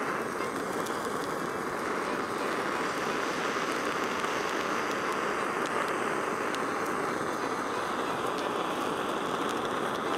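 Handheld gas torch flame hissing steadily as it caramelises granulated sugar on top of a crème brûlée, with a few faint ticks.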